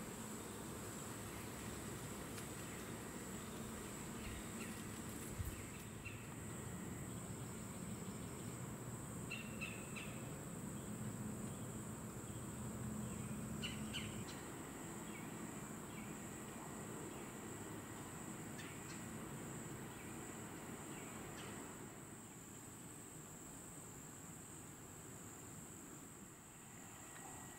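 Steady high-pitched drone of insects in the woods, with a few short bird chirps and a single sharp knock about five seconds in.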